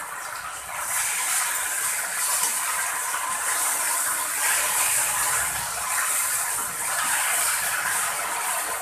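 Onions and capsicum with freshly added chilli and soy sauces sizzling in a hot non-stick wok while a metal spatula stirs and scrapes them. The sizzle gets louder about a second in.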